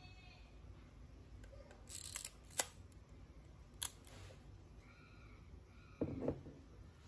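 Mechanical clicks of a Yashica YK rangefinder camera being worked by hand: a quick cluster of clicks about two seconds in, a sharp click just after, and another single click near four seconds. A duller knock follows near six seconds.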